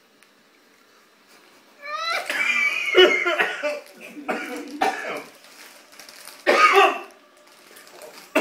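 A man coughing and clearing his throat in several bouts from about two seconds in, the first opening with a short rising vocal sound; it is his reaction to an extremely sour sweet.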